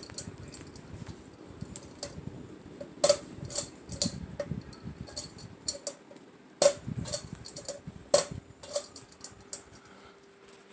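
A series of irregular sharp clicks and light metallic clinks, a few of them loud, with a faint steady hum joining after about eight seconds.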